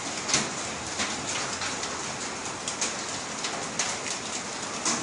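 Rain mixed with volcanic sand and small stones falling. It makes a steady hiss with irregular sharp ticks and clicks as the grit strikes hard surfaces.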